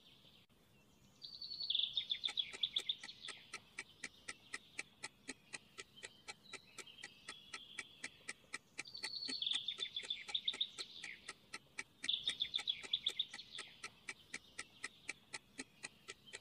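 Quick ticking sound effect of a countdown timer, about four ticks a second, over birdsong, whose bursts of high chirping trills come three times.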